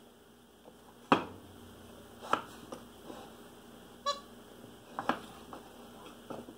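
A wooden mouse-in-a-box gag box being pawed and handled by a capuchin monkey gives a series of sharp, separate wooden knocks and clicks, the loudest about a second in. A brief rapid rattling squeak comes about four seconds in.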